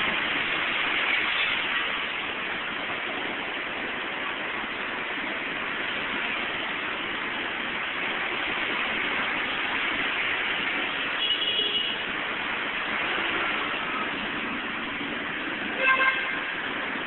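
Heavy rain and road traffic: a steady hiss of rain and tyres on the wet road. A short high horn toot comes about eleven seconds in, and a louder car horn honk near the end.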